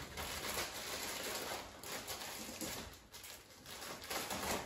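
Plastic bag of frozen clam strips rustling and crinkling as it is handled and opened, in short irregular crackles.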